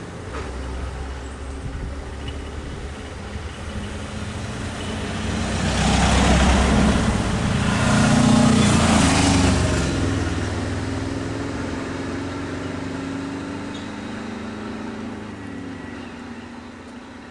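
A motor vehicle's engine running with a steady low hum, swelling louder between about six and ten seconds in, then slowly fading.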